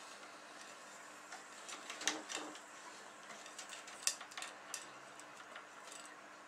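LED strip tape being fed into an empty glass fluorescent tube: faint scraping and rustling of the strip against the glass, with a few short clicks around two and four seconds in.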